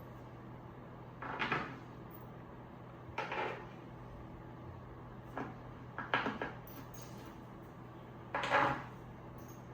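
Wooden bed-frame boards being handled and fitted together: about five short scraping knocks, spread out with pauses between them.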